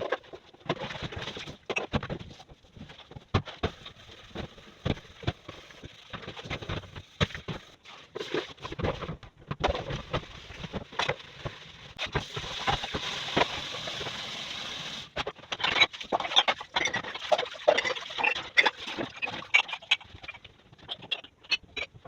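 Kitchen cleaning clatter: a quick, irregular run of clicks, knocks and taps as things are handled and set down, with a steady hiss for about three seconds around the middle.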